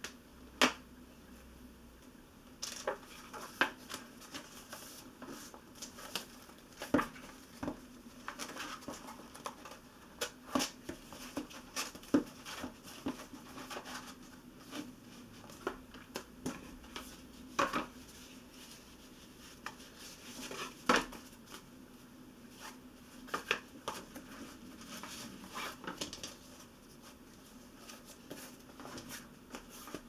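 Hands handling a sewn paper text block and cloth spine tapes on a cutting mat: scattered sharp taps and clicks with soft paper rustling between them. A faint steady hum runs underneath.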